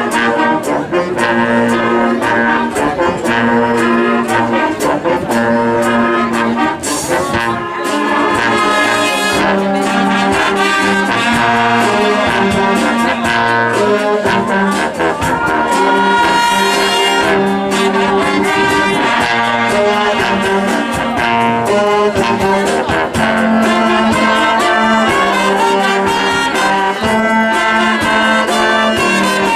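Municipal philharmonic wind band playing a piece, brass to the fore, with trombones and trumpets holding notes over a steady pulse.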